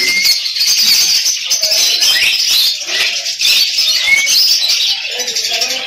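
Dense chorus of many caged small birds, lovebirds and budgerigars among them, chirping and twittering without a break, with a couple of short clear whistles rising above it, one at the start and one about four seconds in.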